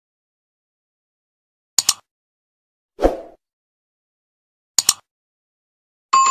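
Sound effects of a subscribe-button animation: about two seconds of silence, then a quick double click, a soft pop, another double click, and near the end a bright bell-like ding that rings briefly.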